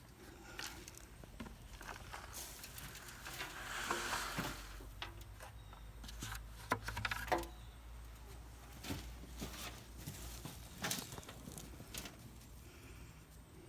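Hands digging and rummaging through soil in a plastic bucket while harvesting potatoes: soft rustling and scraping, louder about three to four seconds in, with scattered small knocks.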